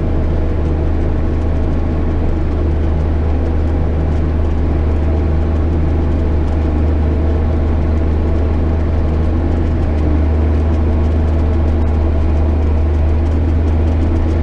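JCB Fastrac 8250 tractor engine running steadily with a deep, even drone while pulling a plough.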